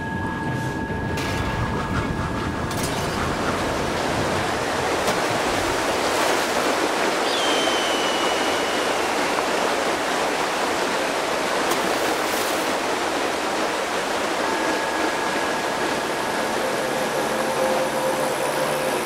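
Steady rushing noise from the sound effects of a fast first-person downhill ride, like water or air rushing past. Faint steady high tones sit under it at the start and again from about three-quarters of the way through, and a short high whistle comes about seven seconds in.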